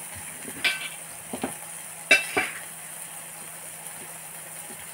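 A knife and fork clinking against a plate a few times, the loudest clink about two seconds in, over a steady faint sizzle of food frying in a covered pan.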